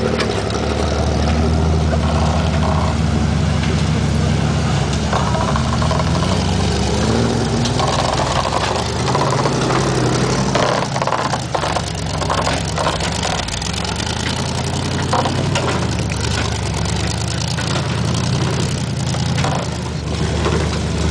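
Off-road Jeep engine running under load on a rough dirt track, its pitch rising and falling as the throttle is worked, with road noise and scattered knocks and jolts in the middle.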